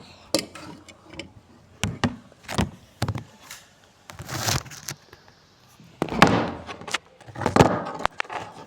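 Irregular knocks and clatters with several short scraping or crunching noises; the loudest bursts come past the middle.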